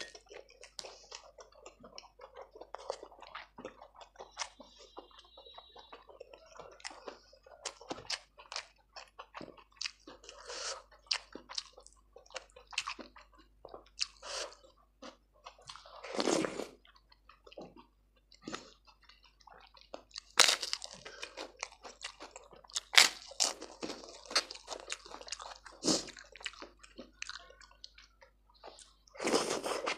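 Close-miked eating: wet chewing and crunching of a meal of khichdi with crisp chips, full of small mouth clicks, with several louder bites and smacks along the way.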